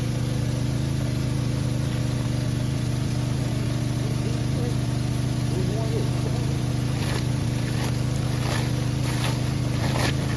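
A small engine, the machine pumping the river dry, running steadily at constant speed. Several short sharp knocks or splashes come in the last few seconds.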